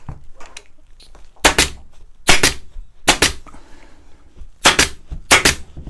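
Pneumatic upholstery staple gun firing staples through muslin into a wooden seat frame: five sharp cracks, each a quick double snap, spaced about a second apart.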